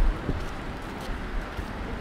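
Wind buffeting the microphone, irregular low rumbles over a steady outdoor street hiss, with a stronger low thump right at the start.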